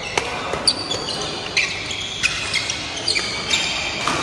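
Badminton doubles rally: a string of sharp racket hits on the shuttlecock mixed with short squeaks of court shoes on the floor, ringing slightly in a large hall.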